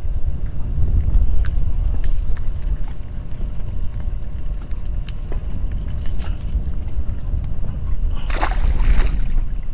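Wind rumbling on the microphone, with light metallic jingling from the lure's treble hooks and the pliers as the hooks are worked free of a red drum. Near the end comes a short burst of splashing as the released fish hits the water.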